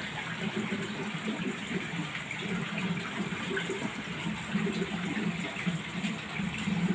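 Steady rush of running water, with an uneven low churning underneath.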